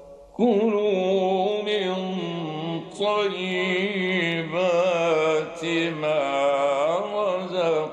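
A man reciting the Quran in the slow, melodic mujawwad style, holding long notes that waver and slide. The recitation starts about half a second in, with a few short pauses for breath.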